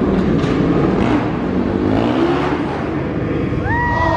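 Motocross dirt bike engine revving hard, its pitch climbing, as the bike is launched off a freestyle ramp. Near the end a separate high tone rises and then holds.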